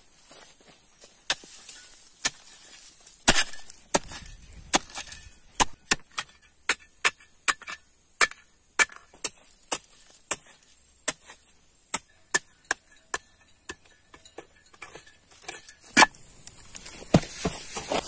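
A short-handled hoe chopping into the ground in a long run of sharp strikes, about one to two a second, the loudest near the end.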